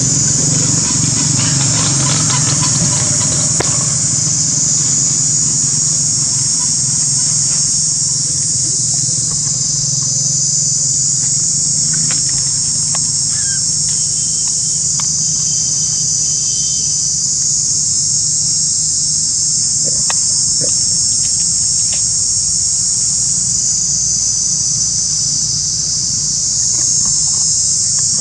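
Loud, steady, high-pitched chorus of insects, with a low steady hum beneath and a few faint clicks.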